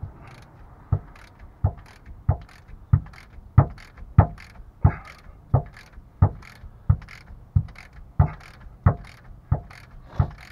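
Ratchet wrench working a rear subframe bolt on a Mustang: a sharp, even click about every two-thirds of a second, some sixteen in a row.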